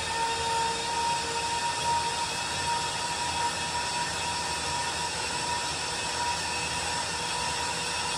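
Starter motor cranking the Chevy 5.3L V8 over with its spark plugs removed, a steady whirring rush with a high whine and no firing, to blow leftover oil and debris out of the cylinders.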